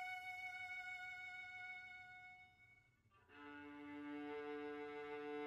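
Solo violin: a long, high bowed note is held and fades away about two and a half seconds in, then after a brief gap two lower notes are bowed together and held.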